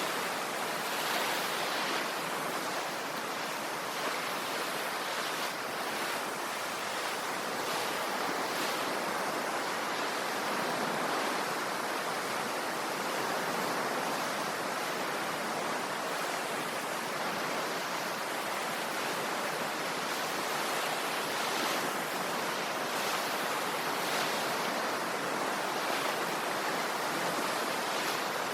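Ocean surf: a steady wash of waves with gentle swells and no distinct breaking crashes.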